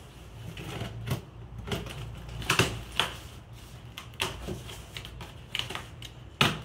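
Cardboard shipping box being opened: packing tape slit with a knife and the stiff flaps pulled back. It gives a string of sharp scrapes and clicks about a second apart.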